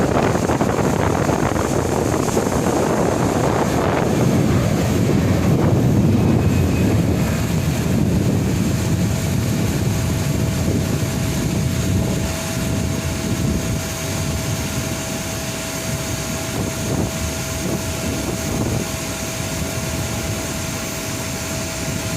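Airliner taking off: a loud, steady rush of engine noise that peaks a few seconds in, then slowly eases as the aircraft climbs away. A steady whine comes in about a third of the way through and holds.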